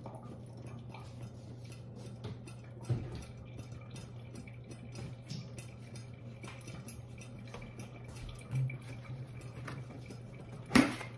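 A low steady hum with a few faint ticks, then near the end a sharp knock and clatter as a plastic flour container is handled at the counter.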